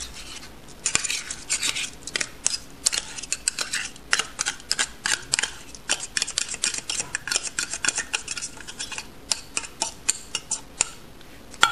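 Canned tuna being scraped and tapped out of its metal tin into a ceramic bowl: quick, irregular clinks and scrapes, several a second.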